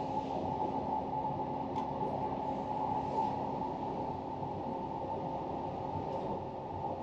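Steady running noise of the E261-series Saphir Odoriko train heard inside the passenger cabin, with a couple of faint clicks as a window blind is slid up.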